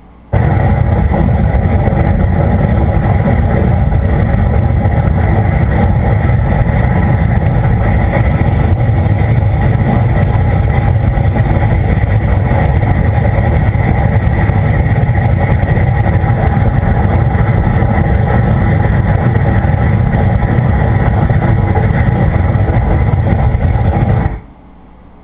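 A loud, steady rumbling roar of unknown origin that starts abruptly and cuts off suddenly about 24 seconds later.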